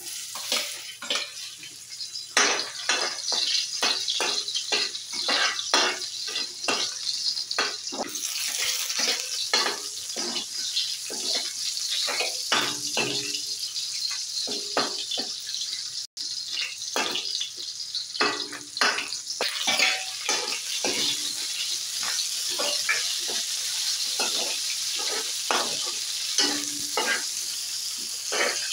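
Garlic, onion and bell pepper sizzling in hot oil in a metal wok, with a metal spoon scraping and clinking against the pan many times as they are stirred.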